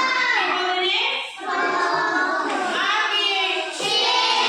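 Children's high voices singing a song, in phrases with short breaks between them.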